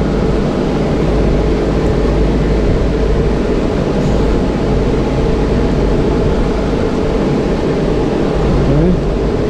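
Steady mechanical hum with an even hiss over it, unchanging throughout; the bolt being tightened makes no distinct sound above it.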